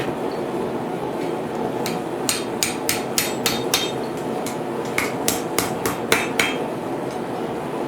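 Blacksmith's hammer striking hot steel bar on the anvil, working the split end of a forged fork. Two runs of quick, sharp blows, about three a second, with a short pause between them, over a steady background rumble.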